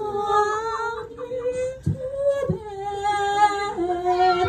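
A woman singing a cappella into a handheld microphone, holding long notes with slides between them.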